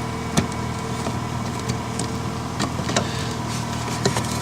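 Steady hum of the car's heater blower motor with the engine running, under several sharp clicks and knocks of the plastic door handle being pushed and worked into place in the door.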